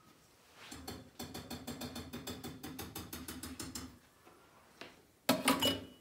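Kitchenware being handled: fast, even clicking of about seven a second over a low hum for around three seconds, then a short loud clatter of cookware about five seconds in.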